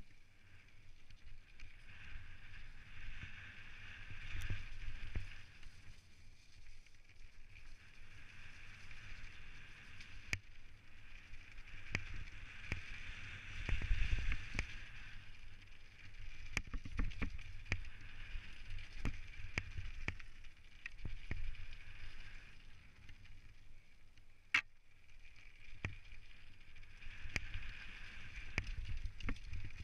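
A Specialized Stumpjumper mountain bike descending a gravel trail: tyres running over the loose surface, with wind rush on the bike-mounted microphone and frequent clicks and rattles as the bike hits bumps. The noise swells and falls with the trail, loudest about halfway through, with one sharp knock a few seconds before the end.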